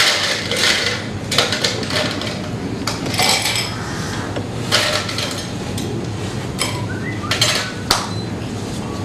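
Glassware and bar tools clinking and knocking on a table as cocktail glasses are handled: a string of irregular separate clinks and knocks, the strongest right at the start.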